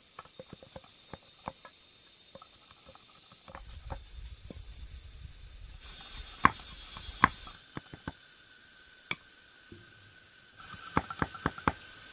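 Irregular taps and knocks of bamboo being handled and worked by hand, a few of them sharp and loud, with a quick run of knocks near the end. Faint steady high tones sit behind them.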